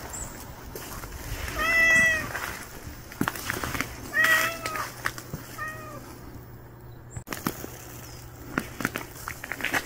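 Cat meowing three times, two drawn-out calls and then a short one, asking for food.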